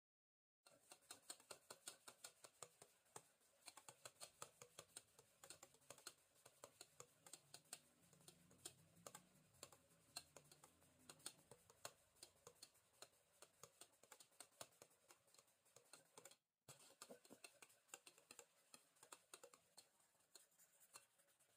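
Wire balloon whisk beating a thin batter in a stainless steel bowl: faint, rapid clicking of the wires against the bowl, several strikes a second, starting about half a second in, with a momentary break late on.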